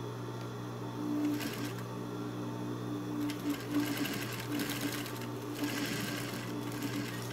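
Table-mounted sewing machine stitching along the hem of curtain fabric, running in spurts with short pauses, over a steady low hum.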